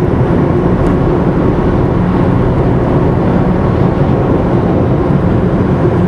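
Steady road and engine noise inside a car driving at highway speed.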